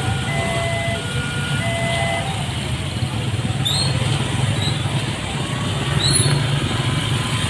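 Many motorcycle engines running together as the waiting traffic moves off over a railway level crossing. An electronic warning signal sounds in short pulsed tones for the first two seconds or so, then stops.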